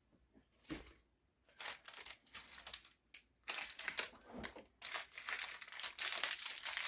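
Small plastic hardware bags of a CPU cooler mounting kit crinkling as they are handled and rummaged through. The crinkling comes in short fits from about a second and a half in and runs almost without a break near the end.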